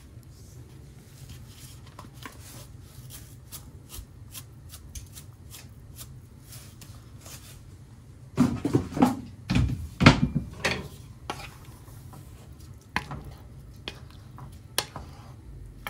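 A cooking utensil scraping and knocking against a pot of rice cooking in water, with small clicks throughout and a burst of louder knocks about eight seconds in, over a steady low hum.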